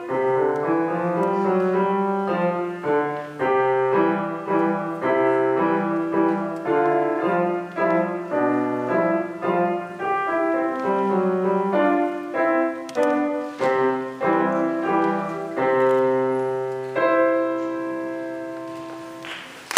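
A Steinway grand piano playing a classical solo piece in a quick, steady run of notes. About three seconds before the end it ends on a long held chord that slowly fades, and applause breaks in at the very end.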